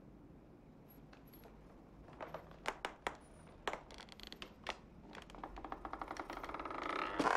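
Scattered sharp clicks and soft knocks from a man stirring on a wooden floor, then a rough, rasping sound that swells louder over about two seconds and cuts off at its peak.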